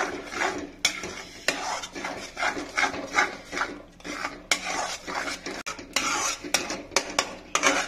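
Metal spatula stirring and scraping egg bhurji around a metal kadhai: quick repeated scraping strokes with clinks of metal on metal, about two a second.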